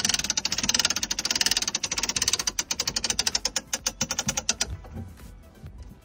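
Rapid, even clicking from the NorDav swivel davit's mechanism as it hoists a 160 kg dinghy. The clicks slow and die away about five seconds in.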